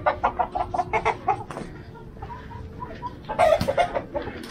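Caged chickens clucking in a quick run of short calls, then a louder burst of calls about three and a half seconds in.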